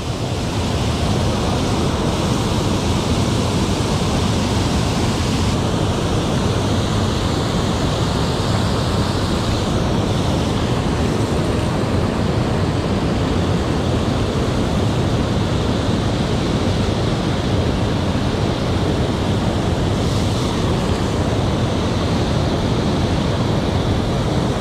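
Steady rush of water pouring over a low concrete dam spillway and churning in the pool below.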